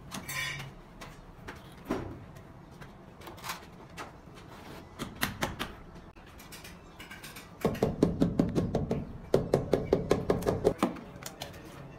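A mallet taps a ceramic wall tile to bed it into its mortar, in two runs of rapid taps, about seven a second, in the second half. Before that come a few scattered clicks and knocks as the tile is handled.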